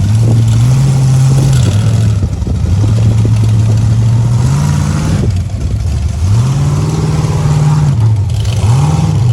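Full-size rock crawler's engine revving in repeated throttle blips as it crawls up the rocks. The pitch climbs and falls several times, with the longest rev held in the second half and a short blip near the end.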